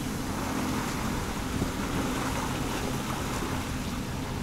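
Motorboat engine idling with a steady low hum, with water splashing and sloshing around the hull.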